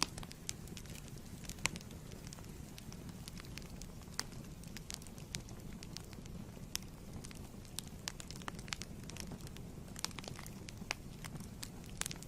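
Wood fire in a fireplace crackling, with irregular sharp pops and snaps several times a second over a steady low rumble of the flames.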